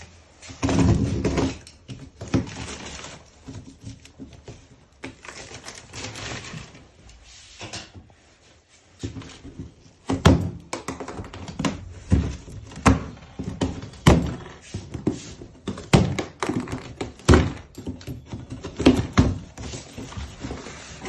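Cardboard packaging being opened and handled: irregular thumps and knocks with rustling and scraping, the knocks coming thicker and louder from about halfway through.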